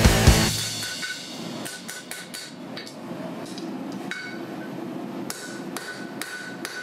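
Hand hammer striking hot steel on an anvil: a series of irregularly spaced blows in quick clusters, each with a short metallic ring from the anvil. This is the forging of the bar's corners to start tapering a snake's tail.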